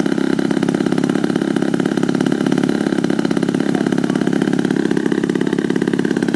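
Large radio-controlled biplane's engine running steadily on the ground, propeller spinning, with a fast, even firing beat.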